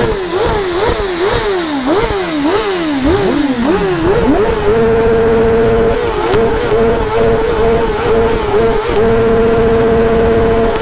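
Stock Kawasaki ZX-10R inline-four superbike engine revved in a run of quick throttle blips. About four seconds in, it is held steady at high revs, dipping briefly twice.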